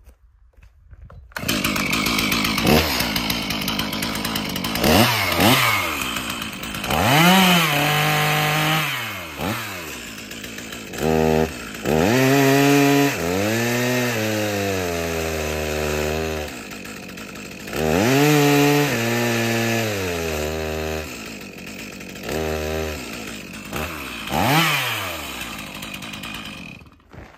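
Stihl MS391 two-stroke chainsaw revving freely in quick rising and falling blips, then cutting into a log with its engine note sagging and dropping in pitch several times. It bogs down and loses power in the wood, the symptom of an exhaust spark arrestor screen half blocked with carbon. The engine cuts off near the end.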